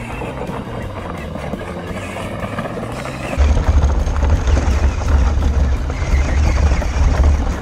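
Background music, joined about three and a half seconds in by a loud, steady low rumble.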